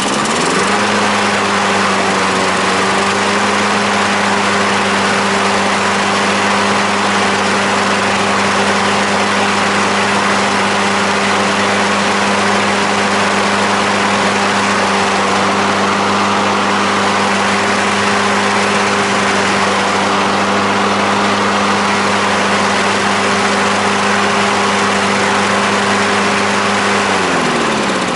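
MTD 53SPKV HW Advance lawn mower's petrol engine catching and running at a steady speed on its test start after carburettor work. Near the end it is shut off and its pitch falls as it winds down.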